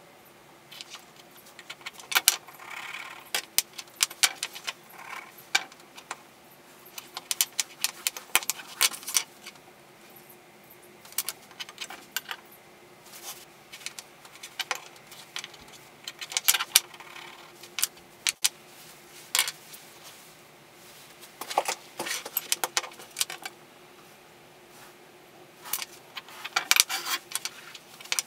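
Light clicks and clinks of a steel engineer's square and small walnut blocks being picked up, set down and butted together on a workbench, in irregular clusters, with short scratches of a pencil marking layout lines. A faint steady hum runs underneath.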